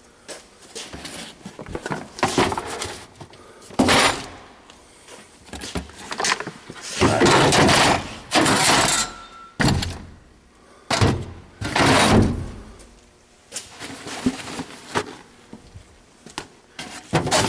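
Tools and kit cases being put back into a toolbox: a series of thunks and clattering knocks, with a few longer sliding, scraping rattles around the middle.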